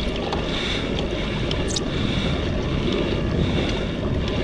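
Steady wind noise on the microphone over the wash of calm sea water around a kayak.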